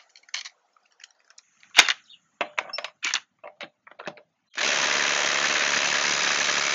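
Ryobi compact brushless impact driver hammering rapidly on a truck lug nut torqued to about 150 ft-lb, breaking it loose. The loud impacting starts abruptly about two-thirds of the way in, after a few scattered clicks and knocks as the socket is fitted onto the nut.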